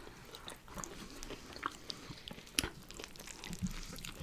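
Close-miked eating: soft chewing and crunching with small mouth clicks, and one sharper crunch about two and a half seconds in.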